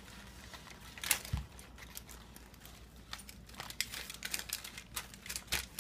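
Aluminium foil crinkling in irregular small crackles as hands press and smooth play-dough onto a foil mountain form, with a sharper crackle about a second in.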